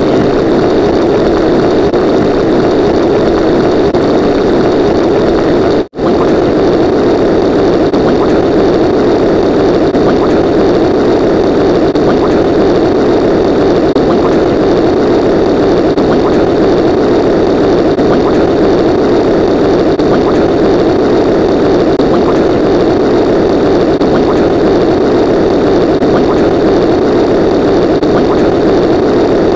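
A loud, steady engine-like drone, cut off for a split second about six seconds in.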